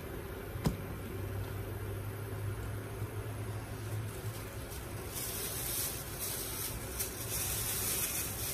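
Vietnamese spring rolls (chả giò) frying in hot oil, sizzling with a hiss that grows louder about five seconds in, over a steady low hum. A single sharp click sounds just under a second in.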